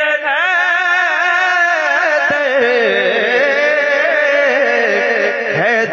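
A man's voice singing a line of an Urdu naat in long, ornamented, wavering notes.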